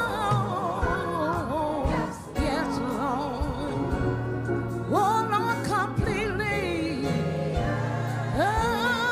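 Gospel song: a vocalist sings long, wavering, ornamented lines over sustained low accompaniment and drum hits.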